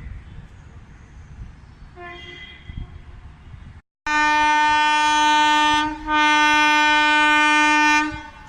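Indian electric locomotive's air horn sounding two loud, long blasts of about two seconds each, over a low rumble. A fainter horn note comes first, about two seconds in.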